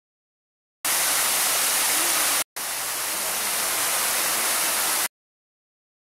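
Fountain jets and water cascading into the basins, a steady rushing hiss. It starts abruptly about a second in, drops out for an instant midway, and cuts off abruptly near the end.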